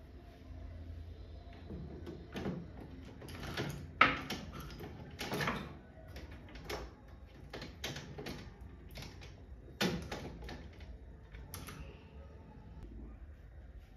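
Irregular knocks and clicks of things being handled, about a dozen over several seconds, the sharpest and loudest about four seconds in.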